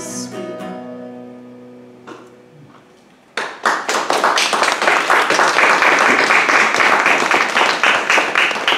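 An acoustic guitar's final chord rings out and fades away. About three seconds in, an audience breaks into loud, steady applause.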